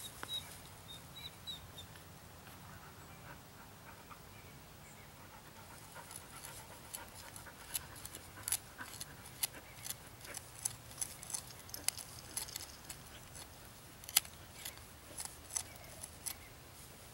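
Bark River Bravo 1.5 knife point carving into a wooden bow-drill hearth board. It is quiet at first, then irregular sharp scraping clicks of the blade biting the wood come through the second half, the loudest a little before the end.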